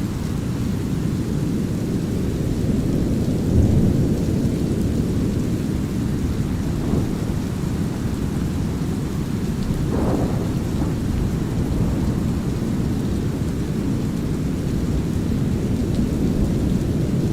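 Steady deep brown noise layered with a light rain drizzle and rolling thunder, with a short low rumble about three and a half seconds in and another brief swell about ten seconds in.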